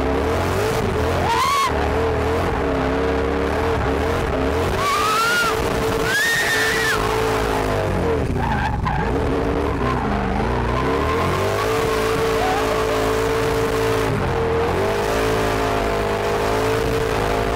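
Drift car's engine held at high revs, rising and falling again and again as the car slides sideways with its tyres skidding. A few short high squeals ring out in the first seven seconds or so.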